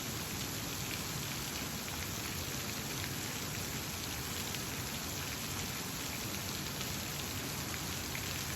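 Running water: a steady, even rushing hiss that does not let up.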